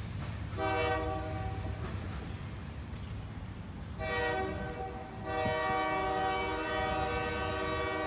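Air horn of a Norfolk Southern GE Dash 9-44CW diesel locomotive sounding three blasts: two shorter ones, then a long one from about halfway in. Under them is a steady low rumble from the approaching train.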